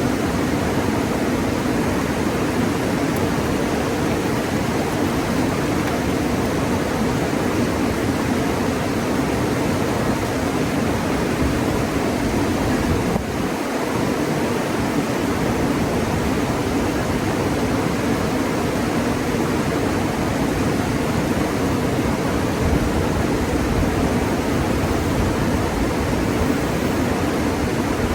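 Steady rush of river water, a continuous even roar without distinct events.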